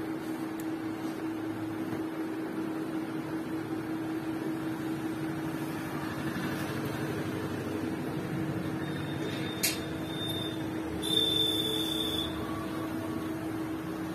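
Steady room hum with one constant low tone, with no voices. A sharp click comes just before ten seconds in, and a brief high beep about a second later.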